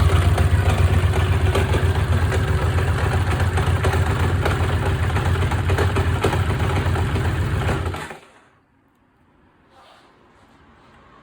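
Honda GL700 Interstate's V-twin engine idling with an abnormal mechanical noise, then shut off about eight seconds in. The noise is thought to come from the starting clutch: all three bolts holding the starting clutch outer to the flywheel had broken, letting the driven gear rub against the clutch outer.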